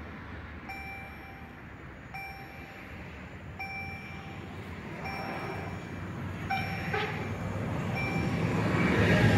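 EHL-S10 electronic level-crossing bell striking about once every second and a half while the crossing lights flash. An approaching electric train's rumble builds from about two-thirds of the way through and is loud at the end.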